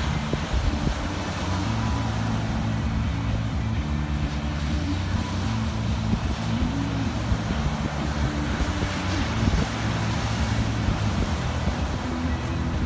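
Wind buffeting the microphone over waves breaking and washing up the shore, with a steady low wavering drone underneath.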